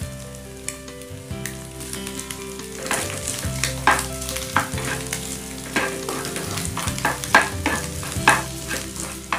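Sliced sausage and scrambled egg frying and sizzling in a nonstick pan. From about three seconds in, a plastic spatula scrapes and stirs through it in strokes, about two a second.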